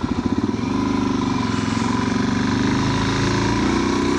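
Motorcycle engine chugging at low revs, its firing pulses quickening about half a second in as it picks up speed, then running steadily under way with a slight rise in pitch.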